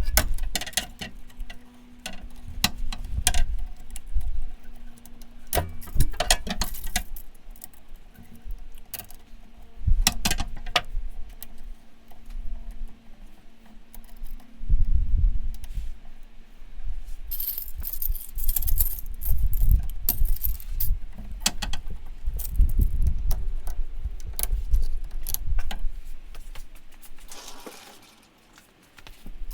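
Metal hand tools and parts clinking and clattering in irregular knocks, mixed with low thuds.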